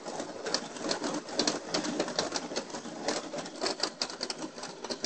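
Cadbury hot chocolate maker running, its stirrer knocking unmelted chunks of chopped chocolate around the plastic jug in a fast, irregular rattle of clicks. The noise comes from chocolate that has not yet melted.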